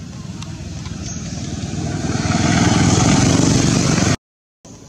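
A motor vehicle, heard as a wide engine-and-road noise, grows steadily louder as it approaches, then cuts off abruptly about four seconds in.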